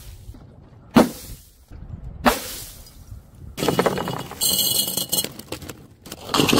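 Two sharp impacts about a second apart. Then snacks poured from crinkling plastic bags into a glass Mason jar, a dense rattle against the glass.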